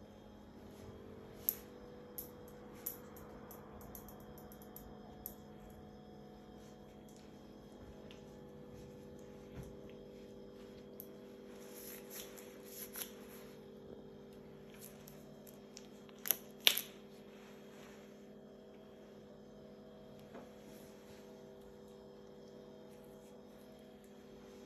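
Latex gloves being rubbed and stretched on the hands, with scattered sharp snaps of the rubber, the two loudest close together about sixteen seconds in. A steady low hum runs underneath.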